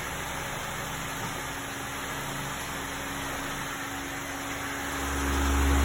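Steady motor noise, with a deep low hum that comes in and grows louder about five seconds in.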